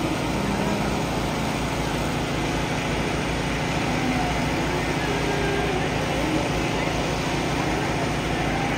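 A steady engine running with a low, even pulse.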